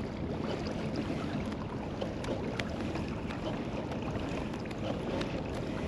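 Fishing kayak under way on calm water: a steady low hum with water moving along the hull, and a few faint ticks.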